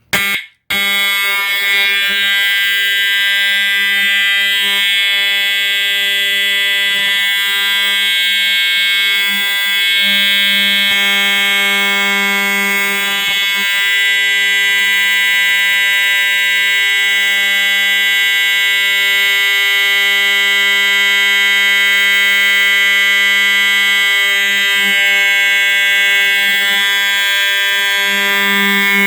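Older Edwards EST Integrity 7577AHS horn strobe sounding its continuous horn: one steady, low-pitched, monotonous buzzing tone, really loud. After a short blip and a brief break right at the start, it holds unbroken.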